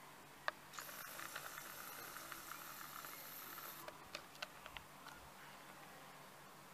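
Faint outdoor ambience with a handheld camera's handling noise: a sharp click about half a second in, a hissing rustle for about three seconds, then a few more clicks.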